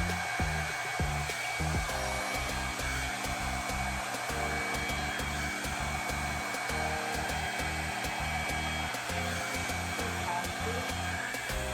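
Revlon One-Step hair dryer brush running steadily on its low setting, blowing hot air, with music playing underneath.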